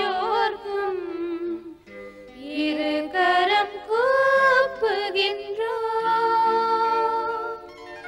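Tamil devotional song: a winding, ornamented sung melody with instrumental accompaniment, settling into one long held note about six seconds in.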